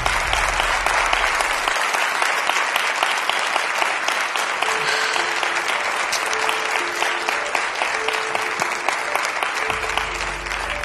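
Studio audience applauding steadily, with a few soft music notes underneath from about four seconds in; the clapping thins out near the end.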